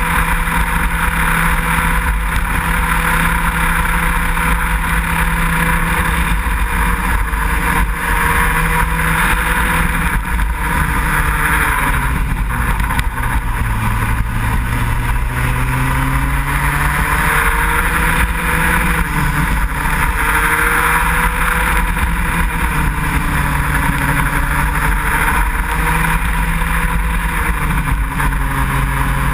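Racing kart engine running hard, recorded by a camera on the kart, over a loud rushing of wind. The engine note holds steady, drops as the kart slows about halfway through, then climbs again and rises and falls with the corners.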